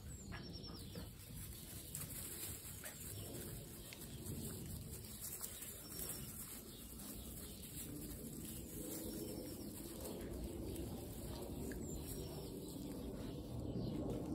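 Golden retriever puppies moving about and scuffling in loose hay, a soft steady rustle, with a few faint high chirps in the background.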